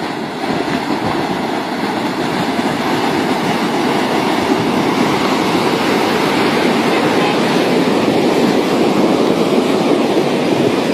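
Flash flood front of muddy water and debris rushing down a dry, rocky streambed: a loud, steady rushing rumble that grows gradually louder.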